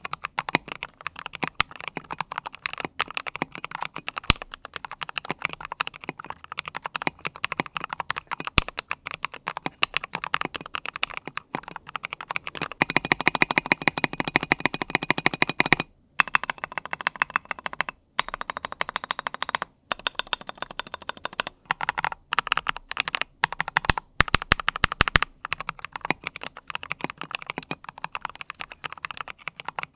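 Typing on a mechanical keyboard, a modded Maxfit 87 fitted with SA-profile PBT keycaps: a fast, continuous run of key presses. A stretch of quicker, louder typing comes about halfway through, and there are brief pauses just after it.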